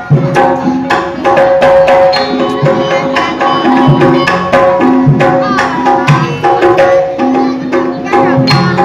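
Kuda kencak accompaniment music: hand drums beaten in a fast, steady rhythm, with held melody notes that change pitch over them.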